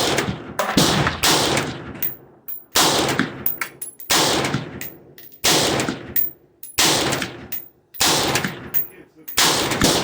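A 16-inch Palmetto State Armory AR-15 in 5.56 firing fast semi-automatic shots, a dozen or so at an uneven pace of about one to two a second, each shot followed by a ringing echo.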